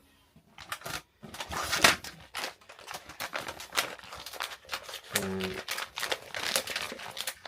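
Quick irregular clicks, taps and crinkling of hands handling cables, a crimping tool and small bagged electrical parts.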